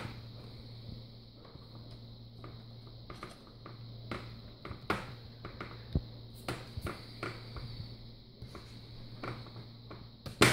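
Scattered small clicks and snaps of a plastic laptop screen bezel being pried loose with a thin tool, with a louder click near the end, over a steady low hum.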